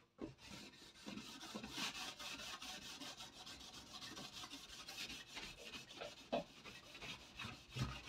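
A wet soap-filled sponge scrubbing a wire oven rack: faint, continuous scratchy rubbing, stroke after stroke.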